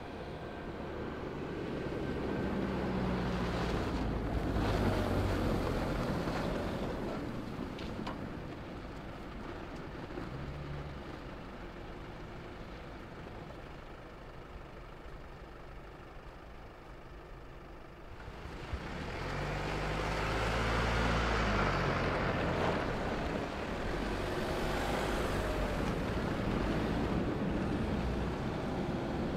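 Camouflaged Jeep compact SUV prototype driving past on a snowy road: its engine note swells as it approaches and fades as it goes by, twice, with a quieter stretch of road and wind noise in between.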